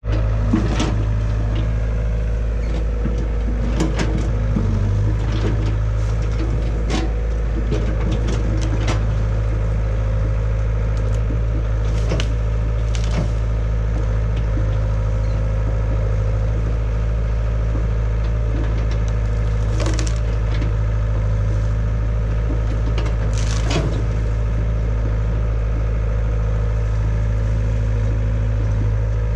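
Caterpillar excavator's diesel engine running steadily while its bucket pushes into a bamboo clump. Bamboo stems and branches crack and splinter every few seconds, loudest near 4, 12, 20 and 23 seconds in.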